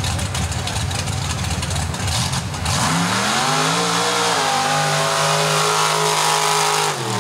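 Mega truck's engine rumbling at low revs, then revving hard about three seconds in as the truck launches off the line; the revs hold high and drop away near the end.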